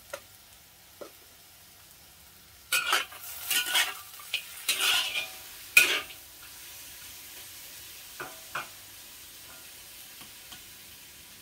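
A utensil stirring and scraping food in a frying pan, with food sizzling. The loudest scraping strokes come in a cluster from about three to six seconds in, followed by two light knocks.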